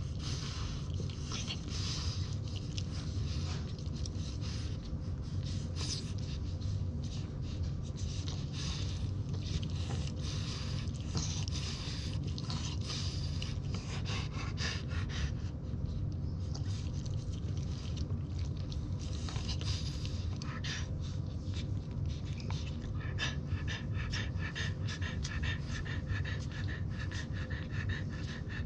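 Newborn French Bulldog puppies suckling at their mother, making many quick wet sucking and smacking clicks, over a dog's steady panting and a constant low hum.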